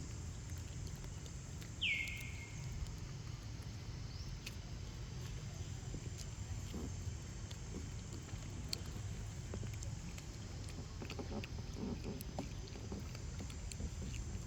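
Steady low outdoor rumble with scattered small clicks, and one short high animal squeak about two seconds in that slides down in pitch.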